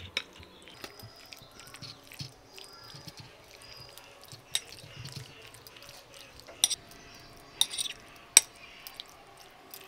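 Metal spoon stirring raw chicken pieces in a thick yogurt and spice marinade in a ceramic bowl: soft scraping with a handful of sharp clinks of the spoon against the bowl, the loudest near the end.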